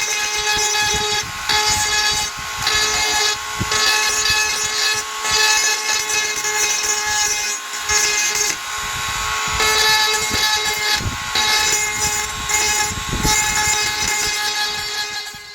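Small power grinder running with a steady whine, grinding down hardened super glue and baking soda filler on a plastic car door handle cover; the grinding noise rises and falls as the tool bites. It stops suddenly at the end.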